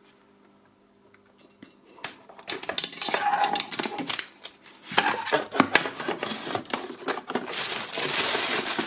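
Handling and packing noise: a plastic globe lamp, its cord and cardboard box being picked up and put away, with irregular clicks, knocks and clatter starting about two seconds in, then plastic wrapping rustling near the end.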